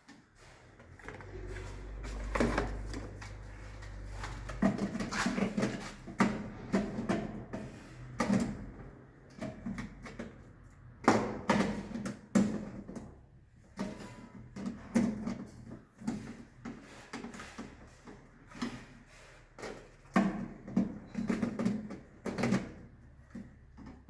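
Plastic miniature circuit breakers being handled and set down, giving irregular clicks and knocks. A low rumble sits under them for a few seconds near the start.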